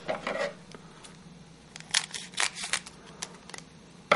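Trading card pack wrapper being torn open and crinkled by hand, a string of short irregular crackles and rips, busiest about two to three seconds in.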